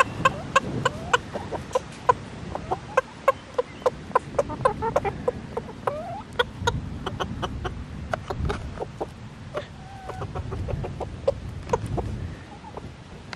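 Silkie and Wyandotte hens clucking in quick, short notes while feeding, with a few brief sliding calls about two-thirds of the way through.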